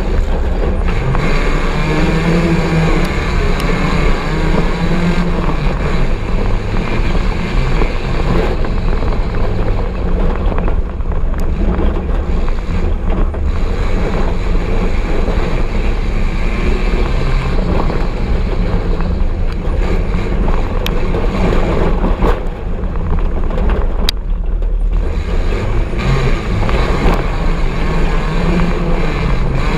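Off-road buggy (gaiola cross) engine heard from on board, running continuously and rising and falling in pitch as it revs, over a heavy low rumble of wind and rough ground.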